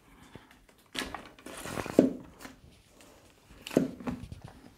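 Handling of a Gala Quick Spin mop's head and microfibre refill in its plastic bucket: a few sharp plastic knocks, the loudest about two seconds in, with a brief rustle just before it.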